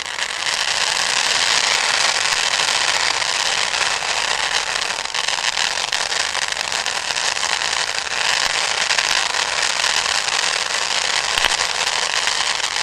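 A spark-spraying firework fountain burning, giving a steady, loud rushing hiss dense with fine crackling.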